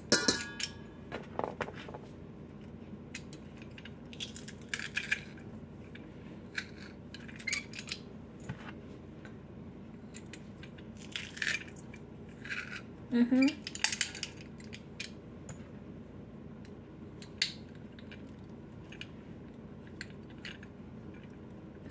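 Metal garlic press squeezing garlic cloves over a stainless steel bowl: scattered light metallic clicks and clinks as the handles close and the crushed garlic is scraped off.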